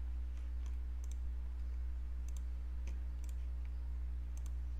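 Computer mouse clicking a few times, several of the clicks in quick pairs, over a steady low electrical hum.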